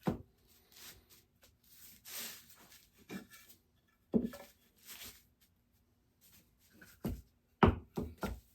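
Bandsawn wooden pieces being handled and rearranged: scattered light knocks and sliding scrapes, with a quick cluster of knocks near the end.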